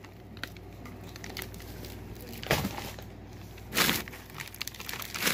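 Plastic packaging bags being handled, giving a few brief crinkling rustles, the loudest a little under four seconds in.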